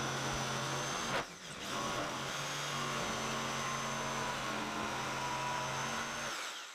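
Corded jigsaw cutting a circular hole in plywood, its motor running steadily as the blade saws through the board. The sound drops out briefly a little over a second in, then resumes and stops just before the end.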